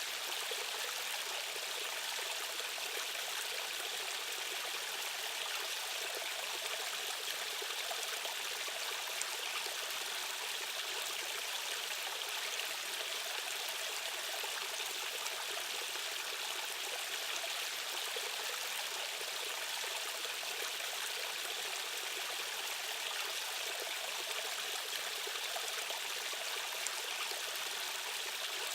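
Rushing stream water, an even, unbroken hiss with little deep rumble.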